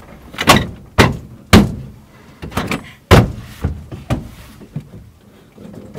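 Knocks and clunks in an old van's metal cab as a man climbs into the driver's seat: about eight sharp hits, the loudest within the first three seconds.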